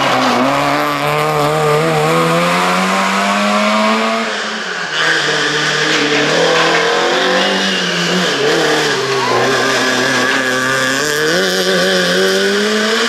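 Rally car engines at high revs as the cars pass one after another. One car's revs climb steadily for about four seconds. After a break, a second car revs up and down through gear changes, with revs rising sharply twice in the later part.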